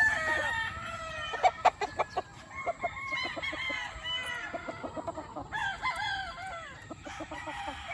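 Gamefowl stags crowing over one another, one crow trailing off about half a second in and another around six seconds, with quick runs of short, sharp clucks in between.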